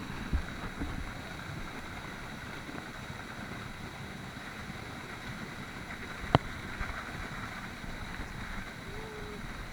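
Steady rushing noise of the waterfall's falling water, with a few light knocks near the start and one sharp click about six seconds in.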